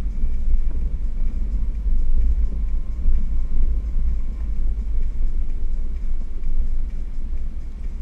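Jeep driving slowly over a rough dirt trail, heard from inside the cab: a steady low rumble of engine and tyres.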